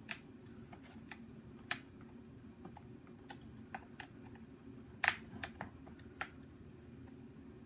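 Sharp, irregular clicks and taps of a screwdriver working a screw out of the plastic shell of a Nerf Hyperfire blaster. The loudest click comes about five seconds in, over a faint steady hum.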